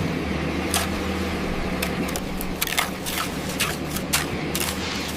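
Construction machinery running with a steady low hum while loose rock or gravel cracks and clatters in irregular sharp clicks, several a second.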